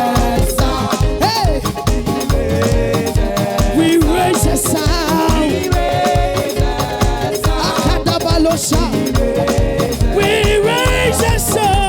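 Upbeat praise music with a steady dance beat, percussion and sung melody lines.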